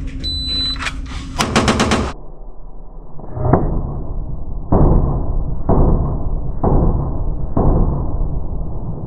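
A shot timer beeps, then a 9mm Glock 19C pistol with a compensator fires a rapid five-round string. The string then plays back slowed down: five deep, dull booms about a second apart.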